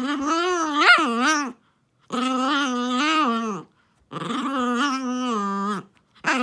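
Toy poodle making long, drawn-out moaning 'anga~~' calls, three in a row, each about a second and a half with wavering pitch, and a fourth starting at the very end. This is playful vocalizing by a dog in a good mood while playing on its own.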